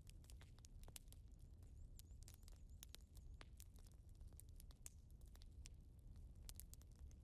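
Near silence: a faint low hum with scattered faint clicks at irregular intervals.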